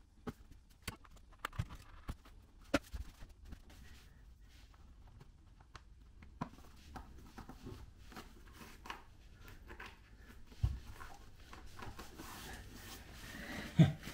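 Light scattered taps, clicks and rustles of glue-down vinyl tiles being handled and pressed into place by hand on an adhesive-coated floor, with a dull thump about two-thirds through and a louder knock near the end.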